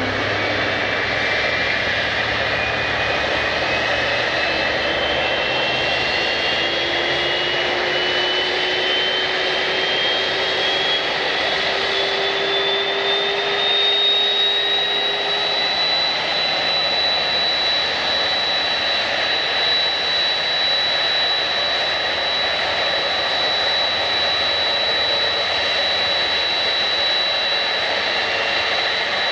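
Airliner jet engines spooling up: a whine climbs steadily in pitch for about fifteen seconds, then holds at a steady high pitch over a loud rush, as the engines come up to takeoff thrust.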